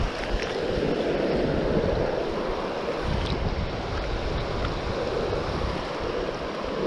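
Fast mountain creek water rushing steadily over a shallow rocky bed, with uneven low rumbling of wind on the microphone.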